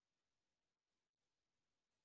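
Near silence: no audible sound, only a faint residual hiss of the audio line.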